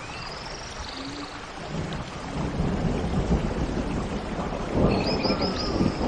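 A low, uneven rumble like distant thunder builds from about two seconds in and is loudest near the end. Birds chirp and trill high above it at the start and again near the end.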